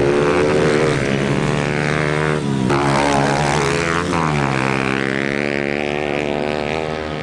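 Pit bikes racing: several small dirt-bike engines revving hard, their pitch climbing and then dropping sharply, about two and a half and four seconds in, as the riders shift and back off.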